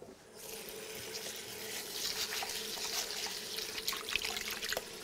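Kitchen tap running into a bowl as rice is rinsed under it, a steady hiss of water with a faint steady tone, starting about half a second in, with a few small clicks from the grains and bowl.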